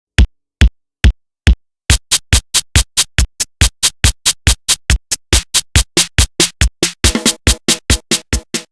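Electronic music intro built on drum-machine hits: four evenly spaced hits, then the same hits twice as fast from about two seconds in. A sustained synthesizer chord comes in under them about seven seconds in.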